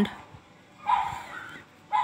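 A short high-pitched whine about a second in, and another starting just before the end, over low background noise.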